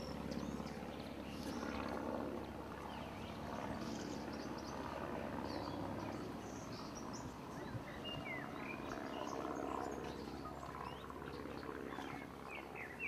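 Outdoor ambience with a steady low hum, and small birds chirping a few short notes in the second half and again near the end.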